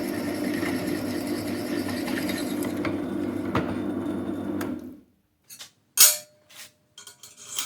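A power tool runs steadily for about five seconds and stops. Then come a series of sharp metal clinks and knocks, the loudest about six seconds in, as steel parts are handled.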